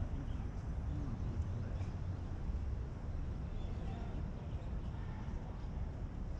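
Steady low rumble of wind buffeting the microphone, with faint footfalls from running and skipping drills.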